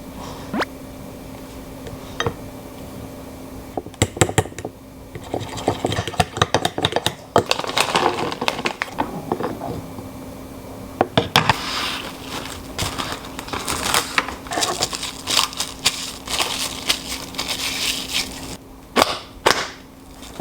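Kitchen food-prep sounds: sharp clicks and knocks of utensils, with long stretches of rapid scraping or whisking in a bowl, over a steady low hum.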